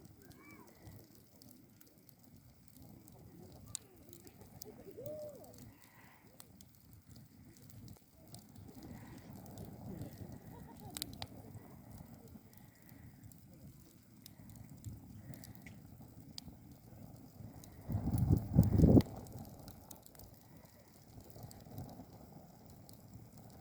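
Wood fire burning in a steel fire pit, crackling with scattered sharp pops over a low rumble of flame. About 18 seconds in, a loud low rumble lasts for roughly a second.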